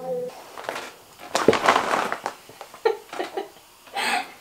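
Stifled, spluttering laughter from people trying to keep water in their mouths, in breathy bursts, with a loud splutter about a second and a half in and a short hissing burst near the end.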